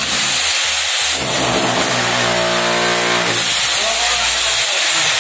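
INGCO 1500 W rotary hammer chiselling into a concrete column, a loud steady hammering rattle with its motor running; it stops right at the end.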